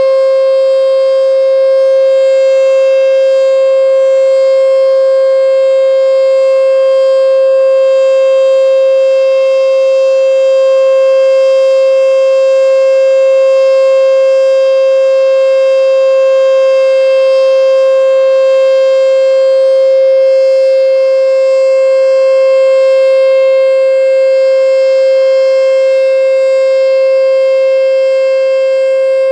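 American Signal T-121 outdoor warning siren sounding the steady Alert signal: one loud, constant tone that holds its pitch without rising or falling.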